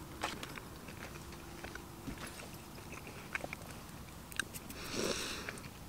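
A person chewing a toasted grilled sandwich, with scattered small crunches and clicks. A brief louder breathy rustle comes about five seconds in.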